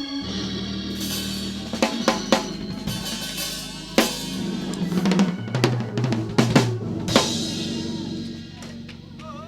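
Church band playing: drum kit hits and cymbal crashes over sustained organ and bass notes, thinning out over the last couple of seconds.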